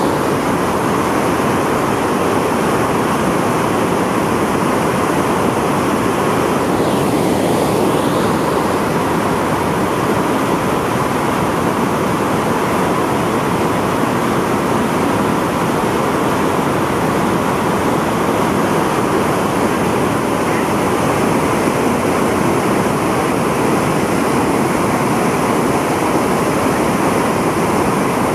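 The Rhine Falls roaring: a large volume of white water pouring over and around rocks, making a steady, dense, unbroken rush.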